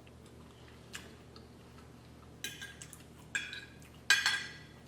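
Metal cutlery clinking and scraping against a plate, in three short ringing bursts in the second half, with a faint tick about a second in.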